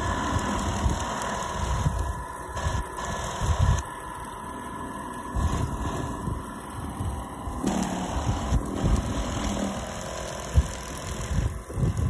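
Remote-controlled tracked snow blower running as it clears snow: a steady motor hum with a constant whine, over uneven low rumbling as the auger churns through the snow.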